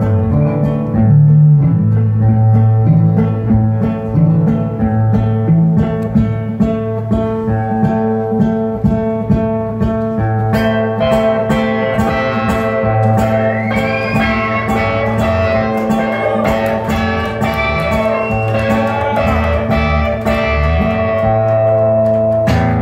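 Acoustic and electric guitar playing together without singing. About ten seconds in, the electric guitar comes forward with a lead line of bending notes over the acoustic guitar's chords.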